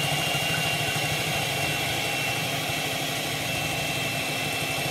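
Electric hand mixer running steadily, its beaters whipping egg whites with sugar in a stainless steel bowl, with a constant high motor whine.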